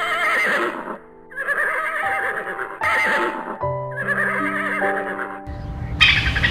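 Horse whinnying several times in high, wavering calls over soft piano music.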